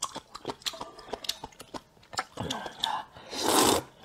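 Close-up wet chewing and mouth clicks, then a loud slurp of rice noodles about three and a half seconds in.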